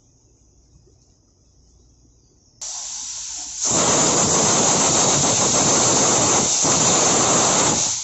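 Compressed-air blow gun blowing the fuel-pipe milling tool clean: a softer hiss starts suddenly about two and a half seconds in, then turns into a loud full blast about a second later that runs for about four seconds with one brief dip.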